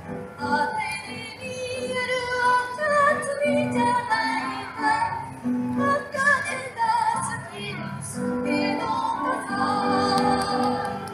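Choir singing a song with held accompanying notes underneath, amplified through outdoor PA loudspeakers.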